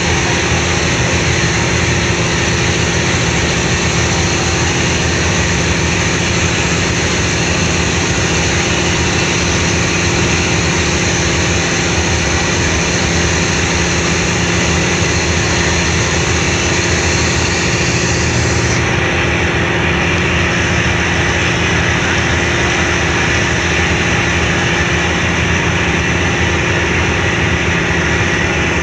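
Car ferry's diesel engines running steadily under way: an even, loud drone with a steady low hum and a rushing hiss over it. The upper hiss eases a little about two-thirds of the way through.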